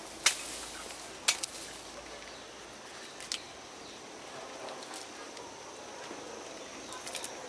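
Two sharp knocks about a second apart near the start and a few fainter clicks near the end, over a hiss that fades after about two seconds.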